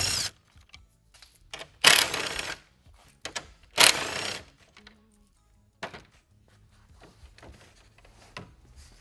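Power drill spinning an 8mm socket in short whirring bursts about two seconds apart, backing out the bolts that hold the grille's support beam. A few light clicks and knocks follow in the second half as the beam is lifted off.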